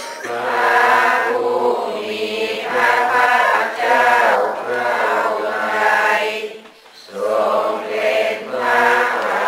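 Buddhist chanting by a group of voices in unison: a steady, sing-song recitation in short phrases, with a brief pause for breath about seven seconds in.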